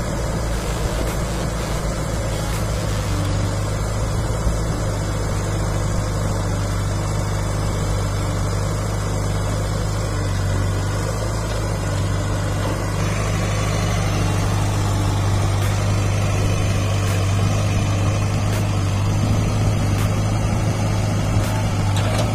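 Heavy diesel engine running steadily, a little louder from about halfway through.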